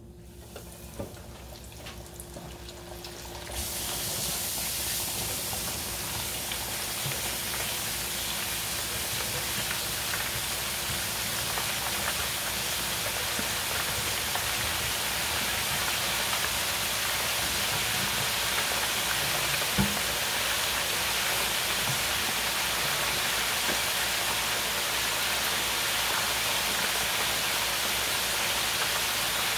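Floured chicken wings being deep-fried in hot oil in a countertop deep fryer: about three and a half seconds in the basket goes into the oil and a loud, steady sizzle of bubbling oil starts suddenly and keeps on.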